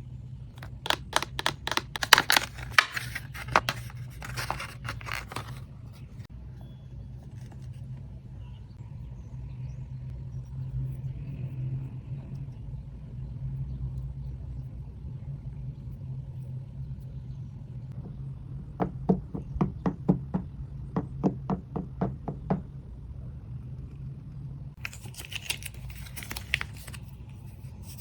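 Stationery items and packaging being handled, with two runs of quick, sharp taps and clicks and a brief scratchy rustle near the end, over a steady low hum.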